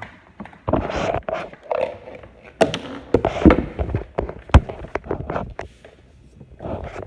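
Irregular knocks, taps and rustling from objects being handled close to the microphone.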